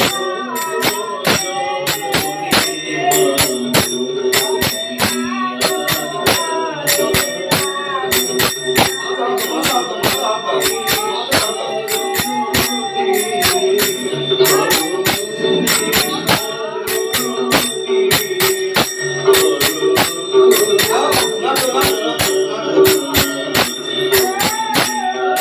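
Hindu devotional music: a sung melody over a sustained drone, with a steady, fast beat of sharp metallic strikes like small cymbals or a bell.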